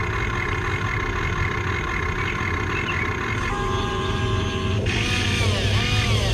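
Small electric motors of a radio-controlled model construction machine whining. The pitch holds steady at first, then rises and falls repeatedly over the last second or so.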